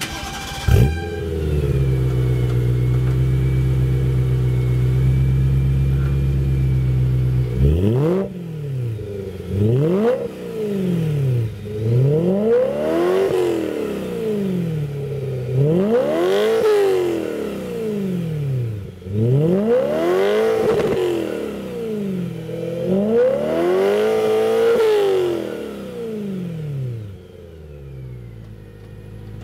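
BMW E92 M3's 4.0-litre V8 running through a Remus race exhaust. It idles steadily for several seconds, then is revved about six times, each rev rising and falling in pitch, before settling back to idle near the end.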